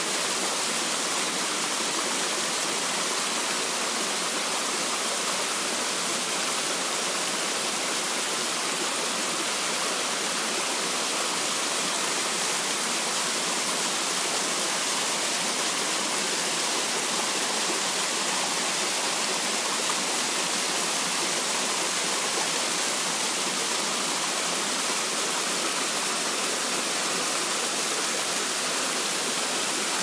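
Small waterfall pouring down a rock face into its plunge pool: a steady, unbroken hissing rush of falling water.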